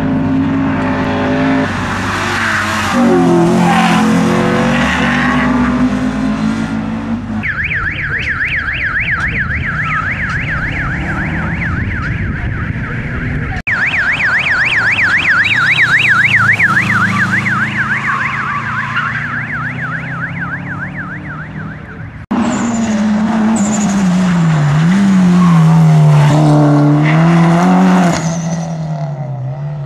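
Rally car engines revving hard as the cars race past, the pitch climbing and dropping through gear changes. Through the middle stretch a fast electronic warble, rising and falling about three times a second, sounds over the engines and then stops.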